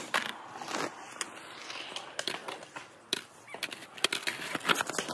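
Skateboards on a concrete skatepark: wheels rolling over the concrete, with scattered sharp board clacks and knocks at irregular intervals.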